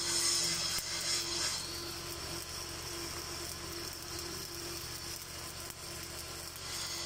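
Stick (shielded metal arc) welding with a 7018 electrode: the arc's steady crackling sizzle, louder for the first second and a half.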